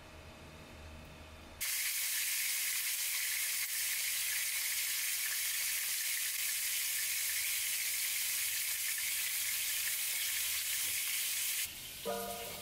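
Food frying in hot oil in a pan: a loud, steady sizzle that starts suddenly about two seconds in and cuts off near the end, where soft music notes begin.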